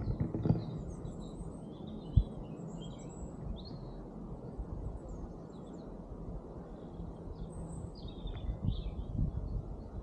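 Small birds chirping in short, scattered calls over a steady low rumble, with a single sharp knock about two seconds in.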